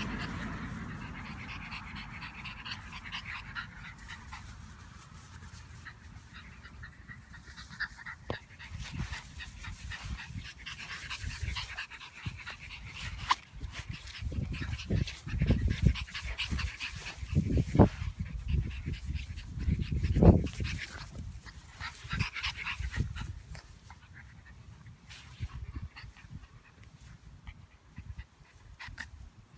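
French bulldog puppies panting as they play. Irregular low thumps come through the middle stretch, the loudest about eighteen and twenty seconds in.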